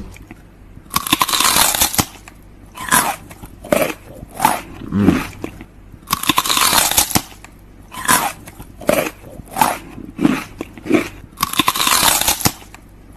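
A small child's shrieks and a man's growls in loud, breathy bursts of about a second each, repeating every few seconds, as he pretends to bite the child's hand.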